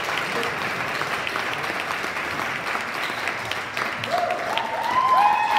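Audience applauding steadily, a roomful of clapping hands, with a few voices calling out over it about four seconds in.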